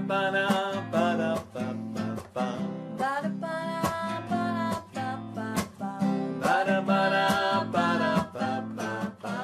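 Intro theme music: strummed acoustic guitar playing a lively, steady rhythm of chords.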